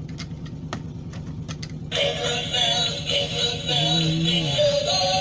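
Battery-powered light-and-sound snowman figurine playing its electronic Christmas song with synthesized singing, pitched low on this unit. The song drops out for about two seconds near the start, with a few sharp clicks as the plastic figure is handled, then starts up again.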